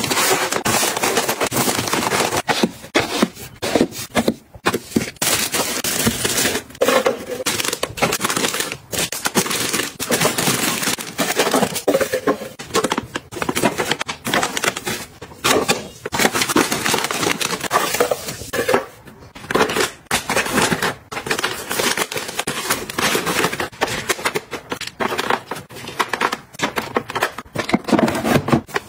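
Plastic packaging crinkling and crackling, with small taps and clicks, as packaged items are unpacked and handled. The rustling keeps going in a dense run with short pauses.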